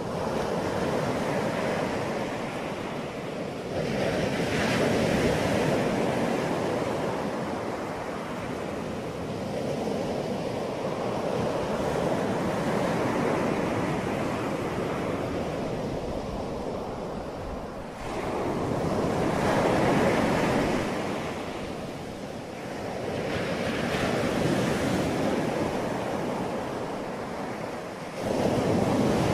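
Wind buffeting the microphone: a rushing noise that swells and fades in gusts, rising suddenly twice in the latter half.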